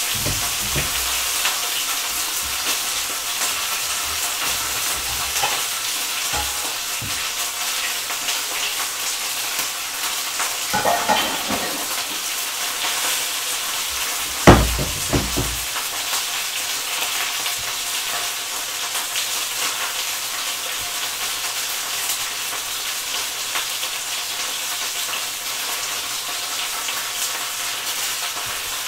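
Chicken thighs sizzling in a frying pan, a steady high hiss of frying. About halfway through comes one sharp clack, with a few lighter knocks shortly before it.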